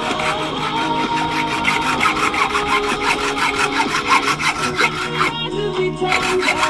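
Hand saw cutting through a large animal bone in rapid back-and-forth strokes, pausing briefly near the end. Radio music plays underneath.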